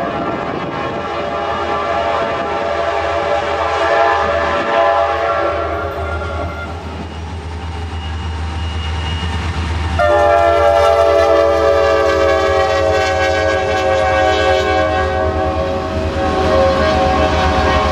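Diesel freight locomotive's air horn sounding two long blasts, the second starting sharply about ten seconds in and dropping slightly in pitch as the locomotives pass, over the low rumble of the diesel engines and the freight cars rolling by.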